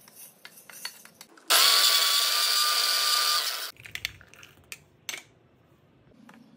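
Electric mixer grinder running for about two seconds with a steady whine, grinding roasted mustard seeds, fenugreek, dried red chillies and cumin into powder. Before it, light clicks as the spices are tipped into the steel jar. Near the end, a few taps as garlic cloves drop in.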